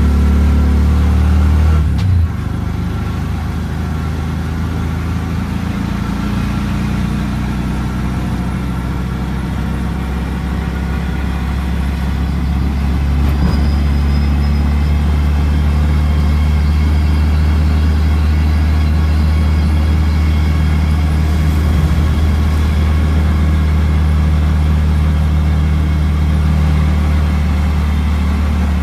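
CNG autorickshaw's small single-cylinder engine running while under way, heard from inside the open passenger cabin along with road noise. The engine note drops sharply about two seconds in, then builds again gradually from around the middle.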